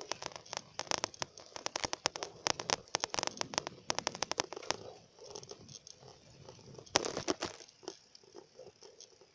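Irregular clicking and rattling from a bicycle being ridden, with the phone knocking and rubbing against the handlebars. The clicks are dense for the first half and come in one more short burst later.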